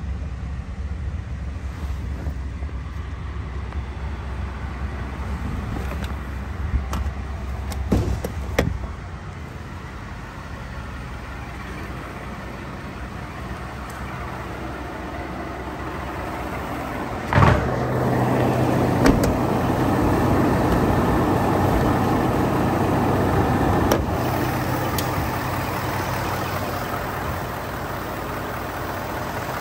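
Ford F-150's 5.0-litre V8 idling steadily, with a few clicks and a thump about eight seconds in, after which it is muffled for a while. A loud knock comes about halfway through, and then the idle is louder and fuller with the hood open.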